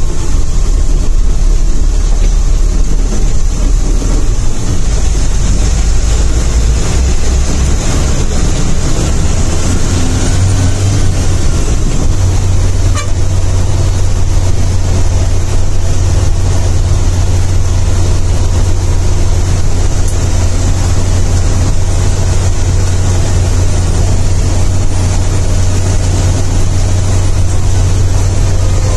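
Bus engine and road noise heard from inside the driver's cabin while the bus is under way, a loud steady drone under a rushing hiss. About ten seconds in, the engine drone settles onto a steadier, higher note.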